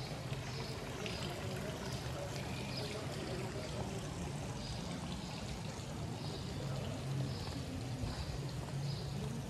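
Water splashing and trickling from a stone fountain, a steady wash, with short high chirps about every second.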